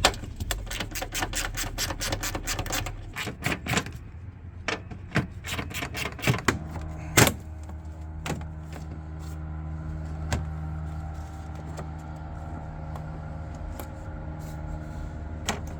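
Socket ratchet clicking rapidly as a 10mm bolt is turned out, then a few separate clicks and knocks. From about seven seconds in, a steady low mechanical hum with fixed tones runs on.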